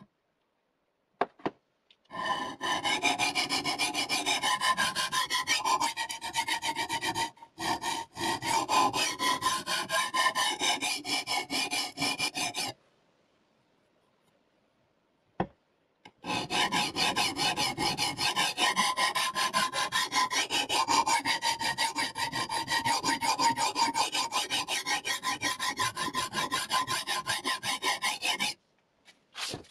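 A CBN sharpening stone on the guided arm of a KosiM knife sharpener, rasping in rapid back-and-forth strokes along a clamped VG-10 steel blade. It runs in two long bouts, one for each side of the blade, with a pause of about three seconds and a click or two between them as the knife is turned over.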